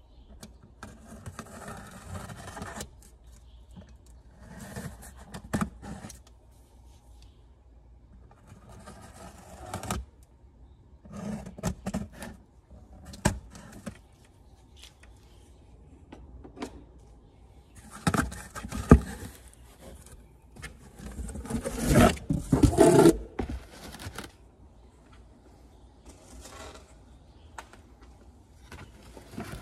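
Box cutter scraping along the packing tape on a cardboard shipping box in several short strokes. Later comes a louder stretch of cardboard rustling and knocks as the box is opened and handled.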